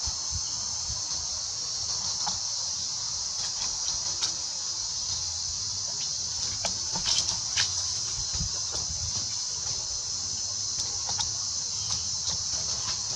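Steady high-pitched drone of insects, with a few short sharp sounds about seven seconds in.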